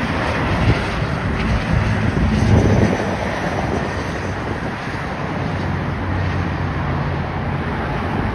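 Bombardier CRJ regional jet's two rear-mounted jet engines on landing, a steady rush of jet noise, a little louder about two and a half seconds in, with wind buffeting the microphone.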